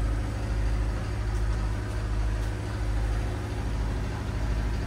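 Machinery running in a ship's engine room: a steady, low engine drone.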